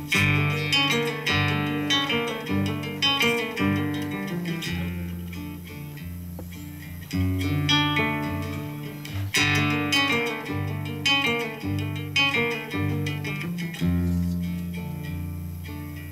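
Live instrumental music on a strummed and plucked acoustic string instrument in a flamenco style, with sharp accented chords every second or two and low sustained notes beneath.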